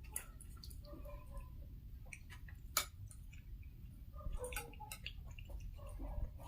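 Quiet eating sounds: chewing and wet mouth sounds of someone eating puri with aloo dum, with scattered small clicks, the sharpest a little under three seconds in.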